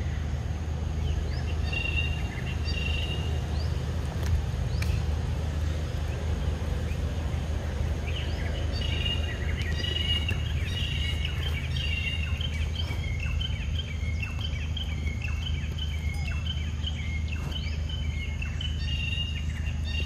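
A steady low rumble of background noise, with a bird calling in short, repeated high chirps, briefly near the start and then without a break from about eight seconds in.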